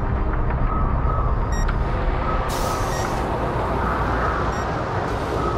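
Steady low rumble of a sci-fi police patrol car's interior, with a short electronic alert beep repeating about every one and a half seconds for an intervention request. A burst of hiss cuts in about two and a half seconds in and again near the end.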